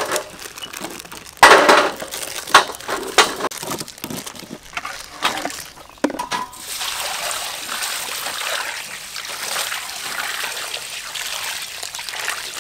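Dry instant-noodle blocks dropped one by one into a stainless steel bowl, a handful of sharp knocks and crunches. About six seconds in, water starts pouring steadily over the noodles in the bowl.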